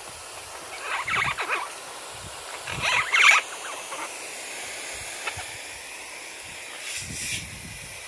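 Steady hiss of a water spray showering caged Amazon parrots, with two short harsh squawks from the parrots about one and three seconds in, the second louder.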